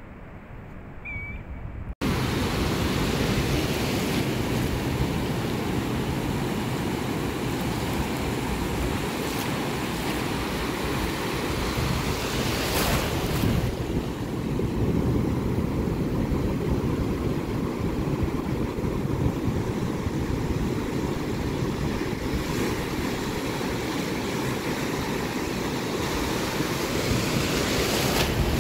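Ocean surf breaking and washing over the shore in a steady, dense rush, with wind rumbling on the microphone. The first two seconds are quieter; then the sound jumps up sharply and stays loud, swelling a little around the middle and near the end.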